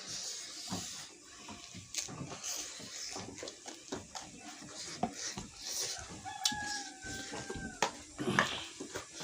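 A rooster crows once in the background, a single held call lasting under two seconds that falls slightly at the end, starting about six seconds in. Short clicks and smacks of chewing and eating run underneath.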